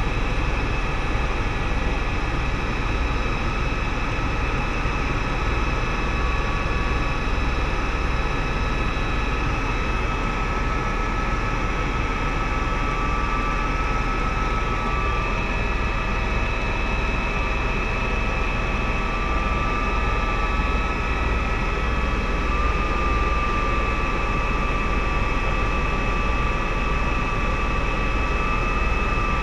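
Helicopter in flight heard from inside the cabin: steady engine and rotor noise with a thin high whine that wavers slightly in pitch.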